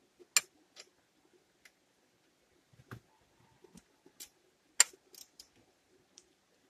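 Scattered sharp clicks and light taps, irregularly spaced, from fitting the drive belt onto a newly installed alternator's pulley, with two louder clicks, one just after the start and one about five seconds in.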